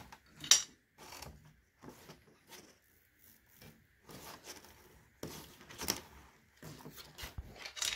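Handling noise from pulling a thin wire through a 3D printer's cable sleeve and plastic wiring: irregular rustles and light clicks. A sharper click comes about half a second in, and a cluster of clicks about five to six seconds in.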